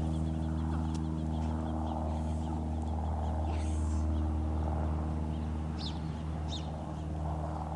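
A steady low mechanical hum with a few evenly spaced overtones, with two brief faint high chirps about six seconds in.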